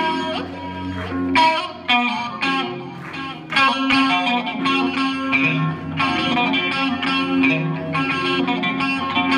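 Two electric guitars played live through an amplifier: quick picked melody notes over a repeating lower riff.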